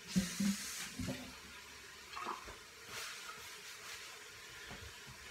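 Water from a kitchen tap splashing into a sink for about a second, with a few light knocks, followed by faint clinks of things being handled.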